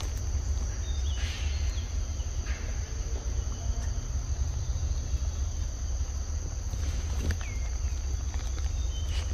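A steady high-pitched insect chorus over a constant low rumble, with a couple of faint short chirps and light clicks.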